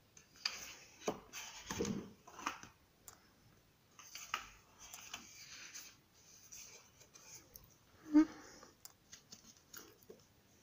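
Paper pages of a spiral-bound colouring book being turned and handled: rustling and sliding of paper in uneven bursts, with one sharp tap about two-thirds of the way through.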